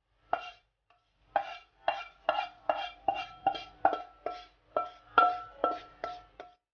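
Wooden spatula knocking and scraping against a metal wok, pushing freshly fried crispy anchovies out into a strainer; each stroke rings briefly at the same pitch, about fourteen strokes at roughly two to three a second.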